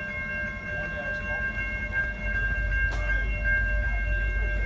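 Railroad grade-crossing warning bells ringing steadily at several fixed pitches over a low rumble, with a single sharp click about three seconds in.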